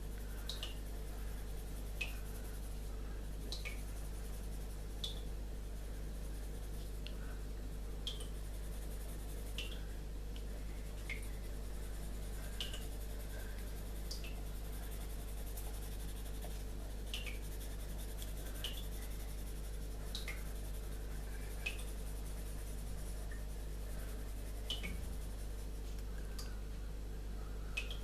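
Graphite pencil shading on paper: faint scratching of the lead, with short high ticks about every second and a half, over a steady low electrical hum.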